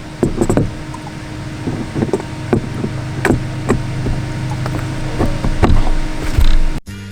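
Irregular knocks and clatter of fishing rods and gear being handled and stowed in a bass boat, over a steady low hum. Music starts abruptly near the end.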